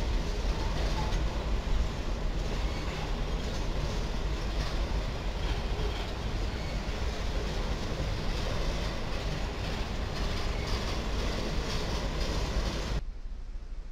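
Freight train cars, a boxcar and bulkhead flatcars, rolling steadily past on the track. The sound cuts off suddenly near the end.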